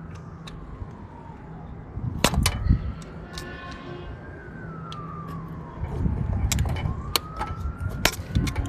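An emergency-vehicle siren wailing, its pitch slowly rising and falling in long sweeps. Sharp metallic clicks and knocks of hand tools on the engine are heard a couple of times.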